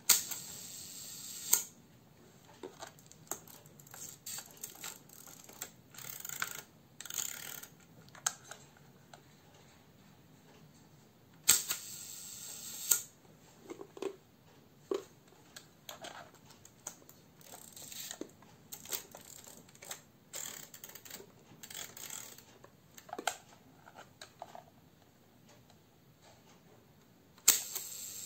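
Mamiya C33 twin-lens reflex camera's Seikosha leaf shutter in the Mamiya-Sekor lens fired three times at a slow speed: a sharp click, a buzz of about a second and a half, then a closing click. Smaller clicks and ratcheting come from the camera's knobs and levers being worked between firings.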